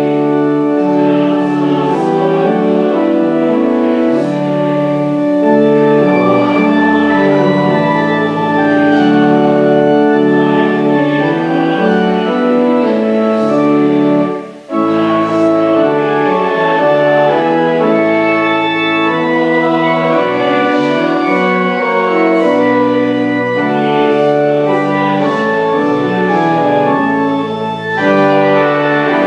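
Pipe organ playing a hymn in held chords, with a brief pause about halfway through.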